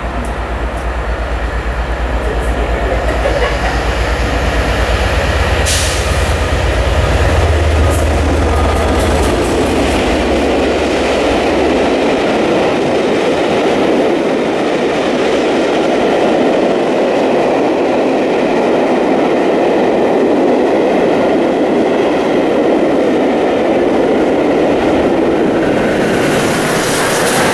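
A1 Pacific steam locomotive Tornado and its train passing at speed. A deep rumble builds and stays for about the first dozen seconds, with a few sharp clicks. It gives way to the steady rushing rumble and clickety-clack of the coaches rolling by.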